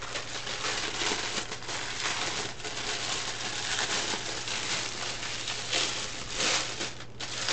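Plastic wrapping on a roll of deco mesh crinkling steadily as hands grip and peel it, with a few louder rustles and short pauses.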